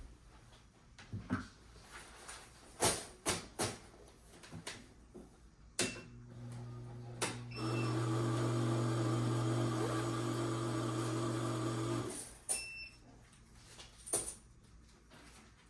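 A few clicks and knocks of handling, then an electric money-counting machine beeps and its motor runs with a steady hum for about six seconds, getting louder partway through and stopping about twelve seconds in, followed by another short beep.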